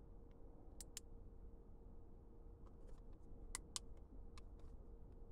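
Faint, scattered clicks of buttons being pressed on a handheld dog-training remote transmitter, two quick pairs among them, over a faint steady hum.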